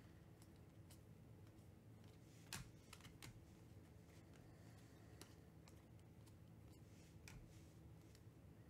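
Faint clicks and slides of Panini Mosaic football cards being flipped through by hand, one card at a time, with one slightly louder click about two and a half seconds in.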